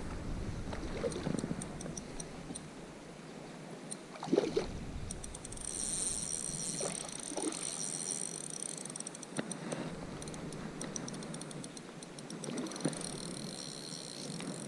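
Stream water running and splashing, with scattered small clicks and a louder sudden splash or knock about four seconds in. A faint high-pitched buzzing sound comes in from about six to nine seconds and again near the end.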